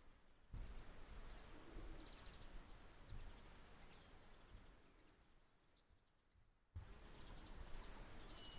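Faint outdoor ambience: small birds chirping sporadically in short high notes over a low wind rumble, dropping almost silent for a second or two past the middle.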